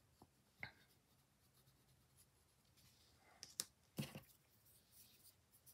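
Near silence with faint scratching of a graphite pencil on a paper tile during shading. A few brief taps and scrapes come about three and a half to four seconds in, as the pencil is put down and a blending stump is picked up.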